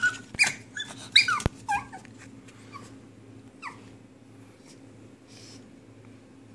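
Pug puppy whimpering: several short, high whines in the first two seconds and one more falling whine near the middle. A single sharp knock comes about a second and a half in.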